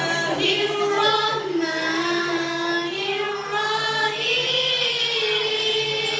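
Children's and a woman's voices singing a nasyid together into microphones, a slow melody of long held notes.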